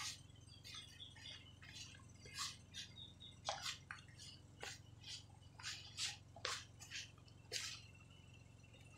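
Hand tossing and stirring wet chicken pieces through flour in a plastic bowl, to build up a shaggy crispy coating: soft irregular scrapes and pats, about one or two a second, over a faint low hum.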